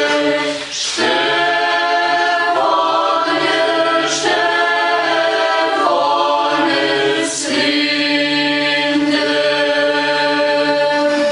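Mixed choir of children and adults singing a cappella in Romanian, in held chords with short breaks between phrases every few seconds.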